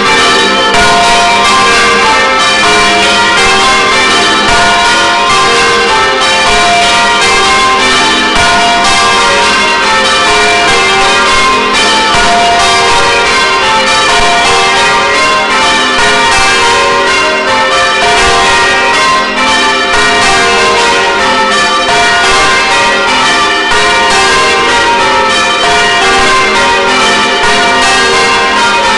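A ring of church bells swinging and striking one after another in quick, continuous succession, heard very loud from right beside them in the bell chamber. The heaviest is a 17 cwt tenor bell.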